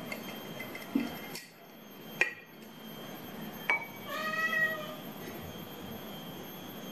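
A few sharp clicks of a swing-top glass jar's wire clasp and lid being opened, then a cat meows once, a single drawn-out meow about four seconds in.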